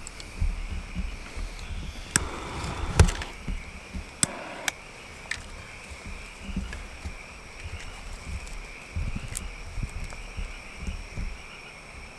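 Steady high insect drone, with a few sharp snaps and scattered low thumps of movement, the clearest snaps about two and three seconds in.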